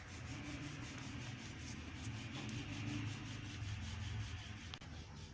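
Wooden rolling pin rolling out a round of paratha dough on a floured marble countertop: a low, continuous rubbing rumble that swells slightly in the middle.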